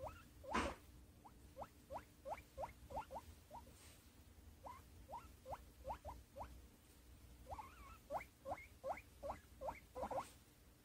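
A guinea pig giving a long run of short rising squeaks, about two or three a second with a couple of brief pauses. A louder rustle comes about half a second in.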